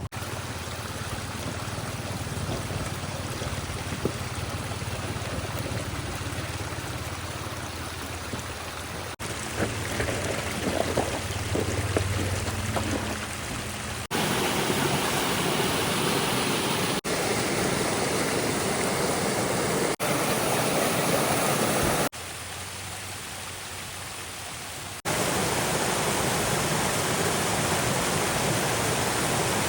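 Stream water running and splashing in a steady rush, heard as a series of short clips joined by abrupt cuts that change its level. Under the first half there is a low hum.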